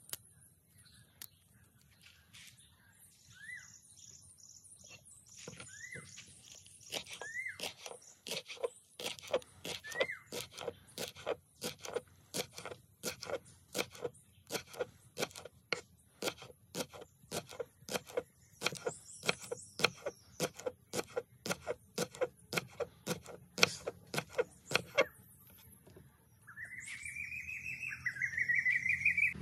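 Knife chopping vegetables on a cutting board, a steady run of sharp knocks at about two to three strokes a second that starts about nine seconds in and stops a few seconds before the end. Birds chirp around it, with short rising calls, and louder rising calls come near the end.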